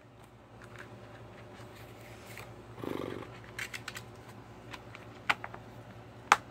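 A plastic multi-disc DVD case being handled and shut: a short rustle of a paper insert about three seconds in, then light clicks and two sharp plastic snaps, the loudest near the end.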